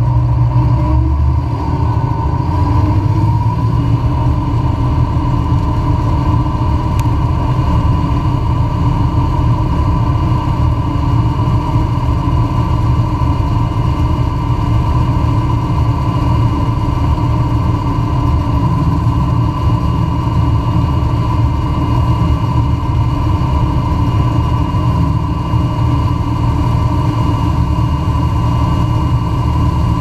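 John Deere 9600 combine harvesting soybeans: engine and threshing machinery running steadily together. It is a loud, even drone with a constant whine on top.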